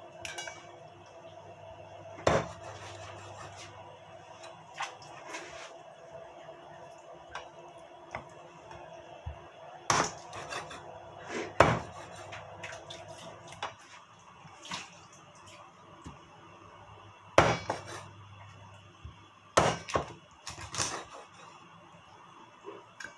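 Meat cleaver chopping raw chicken wings on an end-grain wooden chopping board: single sharp chops every few seconds, with a quick run of three near the end.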